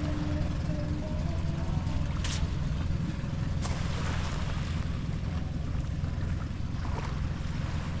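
Boat engine running with a steady low drone.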